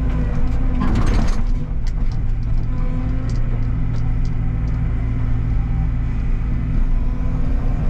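Excavator's diesel engine running steadily under load, with a short noisy burst about a second in and scattered sharp clicks and clanks.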